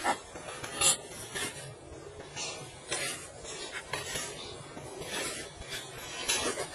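Hoof knife scraping and paring horn from a cow's hoof in short, irregular strokes. Two sharp knocks in the first second are the loudest sounds.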